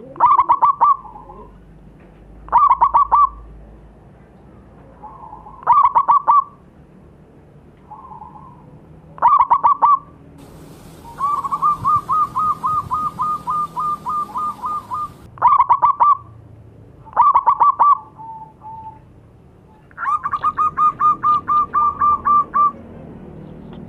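Zebra doves (perkutut) cooing: short bursts of quick staccato coos repeat every few seconds. Two longer, evenly paced runs of coos come in the middle and near the end, with softer coos in between.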